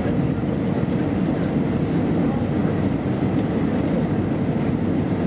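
Steady low rumble of engine and airflow noise inside the cabin of an Airbus A320 in flight on approach, with its IAE V2500 turbofans running.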